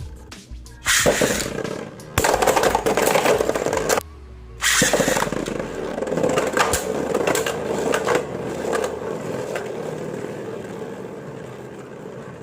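A Beyblade spinning top launched onto a hard surface, spinning with a whirring, scraping rattle that fades gradually as it slows.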